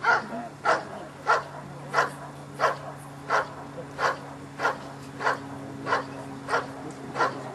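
Dog barking in a steady, even rhythm, about three barks every two seconds. This is the hold-and-bark of Schutzhund protection work: the dog sits guarding the helper and barks at him without biting.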